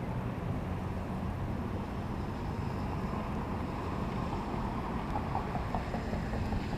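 Steady low rumble of wind on the microphone mixed with distant road traffic, with a few faint short chirps late on.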